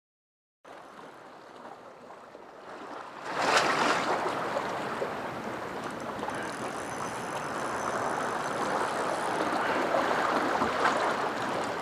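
Steady wash of ocean waves at the shoreline, starting faintly a moment in and growing louder about three seconds in.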